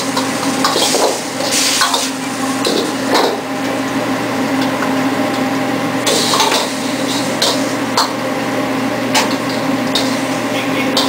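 Metal ladle clanking and scraping against a wok as noodles are stir-fried and tossed, with some sizzling, over a steady kitchen hum.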